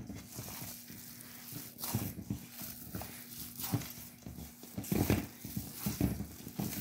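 Raw ground-beef meatball mixture being worked with a spatula in a metal mixing bowl: irregular soft thuds and squishing, heaviest about five seconds in.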